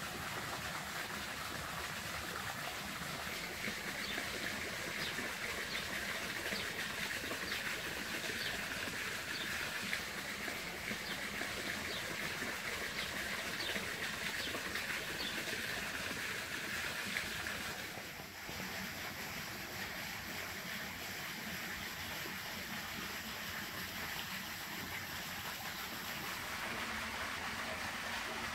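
Small garden fountain spraying into a pool: a steady rush of splashing water, which changes a little in tone about two-thirds of the way through.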